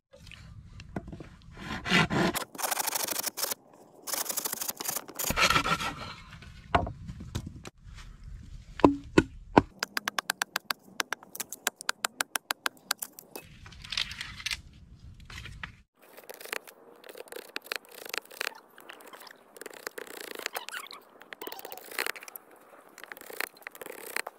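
Bamboo being worked with a machete and knife: rough scraping and cutting strokes in separate stretches, and in the middle a quick run of sharp knocks, about five a second for a few seconds.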